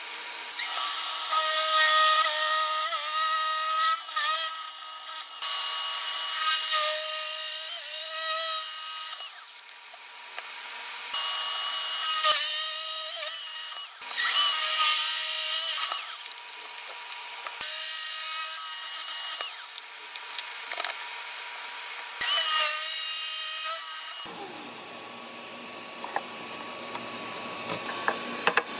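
Power drill with a Forstner bit boring into wood, the motor whining under load in a series of separate cuts that start and stop abruptly. The last few seconds are quieter, with a low steady hum.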